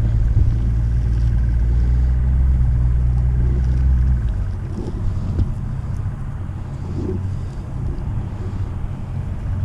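A boat's outboard motor running steadily at low speed, dropping to a quieter idle about four seconds in.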